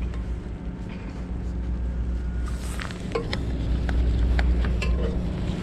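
Steady low wind rumble on the microphone, with a scatter of short sharp clicks and taps in the second half.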